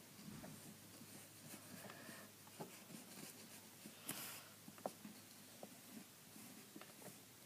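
Faint scratching and light taps of colouring in by hand, with one slightly louder scrape about four seconds in.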